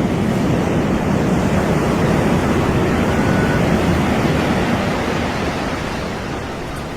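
Ocean surf on a beach: a steady, dense wash of breaking waves, easing off a little near the end.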